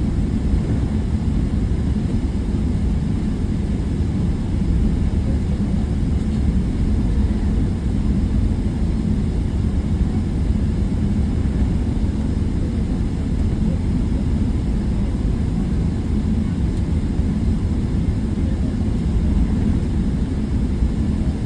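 Steady low rumble of an airliner's jet engines and airflow, heard inside the passenger cabin.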